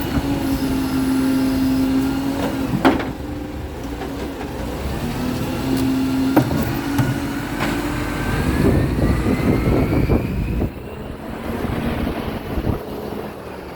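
Garbage truck running with a steady low drone twice and several sharp knocks, then a slowly rising high-pitched whine. These are the weird scraping noises the truck makes when it reverses.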